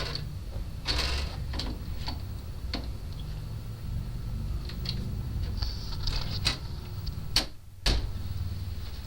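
Door lock being fitted: irregular clicks, taps and knocks of hand tools and metal lock parts against the door, over a steady low hum. The loudest two knocks come close together near the end.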